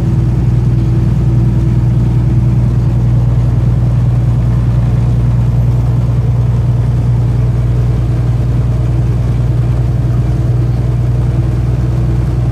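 Steady drone of a truck's engine and road noise, heard from inside the cab while cruising at highway speed.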